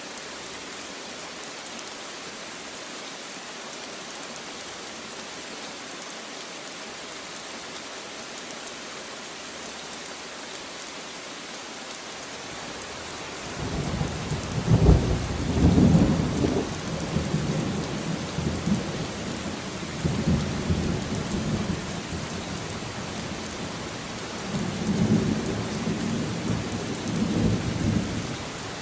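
Steady rain falling, with a long roll of thunder that starts about halfway through, peaks soon after, and rumbles on in several swells before easing near the end.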